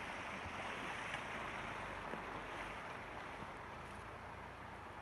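Steady rush of flowing water, an even hiss with no distinct events.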